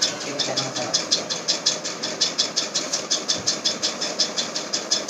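A machine or motor running steadily, with a fast, even pulsing hiss of about seven beats a second.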